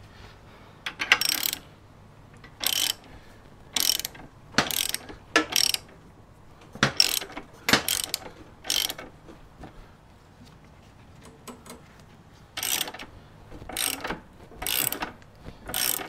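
Ratchet wrench clicking in short bursts of strokes as it turns a motorcycle lift jack to raise the back of the bike, with a pause of a few seconds after the middle.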